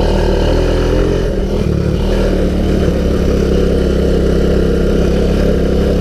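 1985 Honda ATC200S three-wheeler's air-cooled single-cylinder four-stroke engine running steadily while the machine is ridden along.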